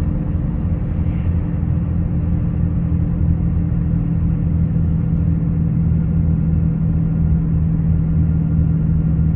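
Infiniti G37 cruising steadily at about 50 mph, heard from inside the cabin: its 3.7-litre V6 and road noise make a steady low drone with a constant hum.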